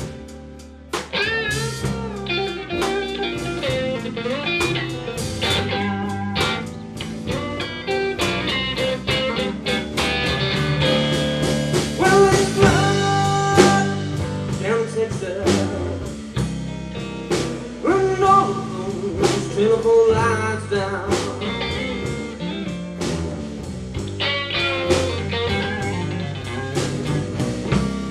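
Live blues played on two guitars: an electric guitar plays lead lines with many string bends over an acoustic guitar keeping the rhythm.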